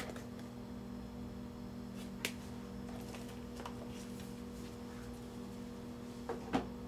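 A few light clicks and taps from cardboard game boards being handled and moved, the sharpest about two seconds in and a couple more near the end, over a steady electrical hum.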